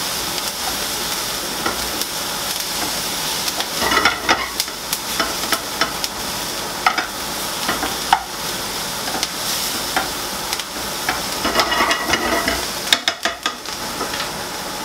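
Chopped red onion, red pepper and garlic sizzling steadily in a non-stick frying pan on a gas hob, with scattered clicks and scrapes of a spatula stirring them against the pan.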